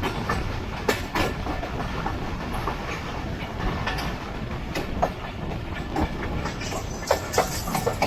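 Jaffar Express passenger train running along the track, heard from aboard a coach: a steady rumble of wheels on rail with irregular clicks and knocks as the wheels cross rail joints.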